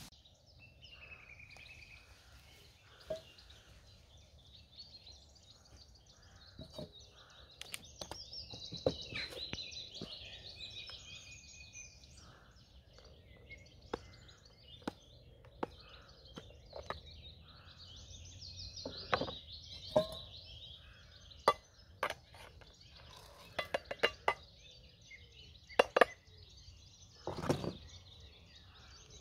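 Birds singing, with scattered sharp clinks and knocks as a metal bowl and plastic food tubs are handled on a wooden table; the knocks come more often and louder in the second half.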